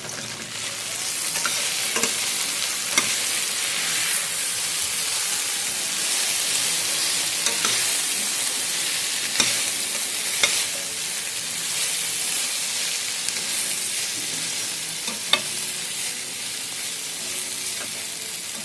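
Sliced okra and green chillies sizzling in oil in a stainless steel pan while being stirred to mix in ground spices, the metal slotted spoon clinking and scraping against the pan every second or few. The sizzle grows louder about a second in.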